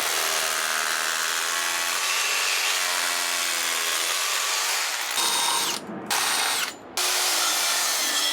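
Power drill driving in fixings to secure a frame, its motor whining in long runs at a few different speeds, with two short breaks about two-thirds of the way through.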